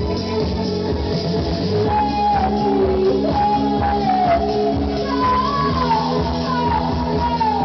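Live band music: sustained low notes and chords under a melody line that repeatedly slides down in pitch.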